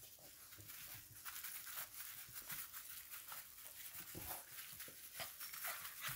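English bulldog puppies scuffling and playing on artificial grass: faint rustling and scratching with many small scattered clicks.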